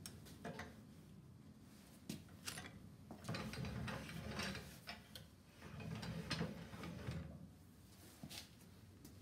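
Alloy-steel Puckle revolving cannon worked by hand: the locking lever and revolving cylinder clack and scrape, metal on metal. There are a few sharp clicks, and two stretches of rattling and scraping about three and six seconds in, as the cylinder is turned to the next chamber.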